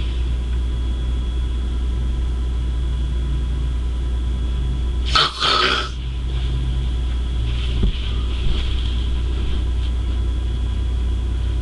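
A child snoring heavily like an old man, with one loud, harsh snort about five seconds in, over a steady low rumble.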